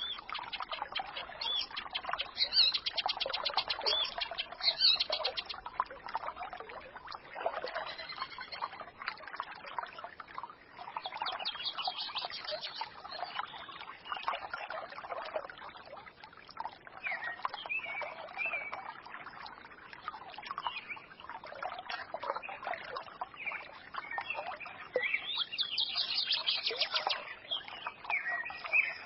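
Small forest stream babbling, with songbirds chirping and trilling over it; bursts of rapid high trills come a few seconds in, around the middle and again near the end.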